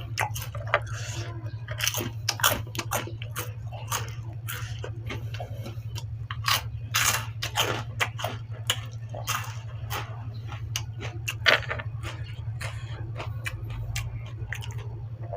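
A person chewing and biting food close to the microphone, with irregular crunches and clicks, while eating stewed-pork noodle soup with crispy pork rinds. A steady low hum runs underneath.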